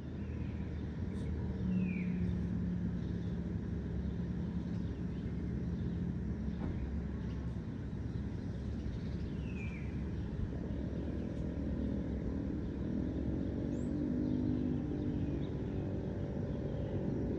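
A motor vehicle's engine running nearby as a low traffic rumble, its hum moving higher in pitch about ten seconds in, with a couple of short bird chirps over it.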